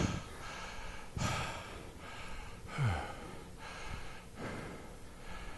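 A man breathing hard after a set of pull-ups: three heavy, gasping breaths about a second and a half apart, the middle one ending in a short falling grunt.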